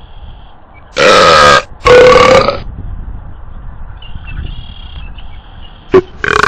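Loud belches passed off as the call of a 'burping bird': two back to back about a second in, each lasting about half a second, then a short sharp click and another belch starting near the end.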